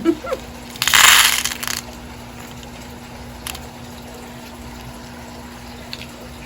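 A brief rustle of a packet of beads being handled, about a second long and starting about a second in, followed by one faint tick over a faint steady hum.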